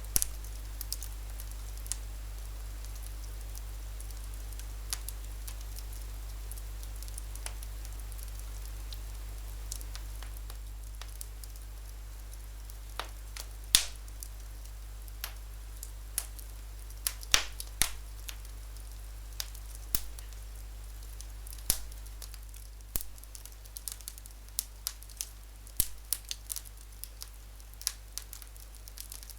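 Wood fire in a fireplace crackling, with irregular sharp pops that come more often in the second half, over a steady low rumble.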